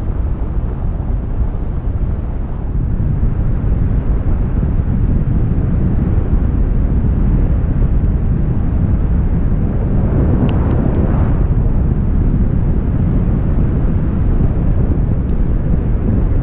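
Wind buffeting the microphone in a steady low rumble during a paragliding flight, briefly louder about ten seconds in.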